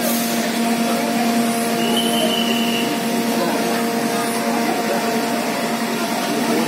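Fire engine machinery running steadily, a constant humming drone with an even noisy roar, with crowd voices beneath.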